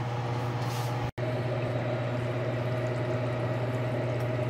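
A pan of okra and tomato stew simmering under a glass lid, over a steady low hum. The sound cuts out for an instant about a second in.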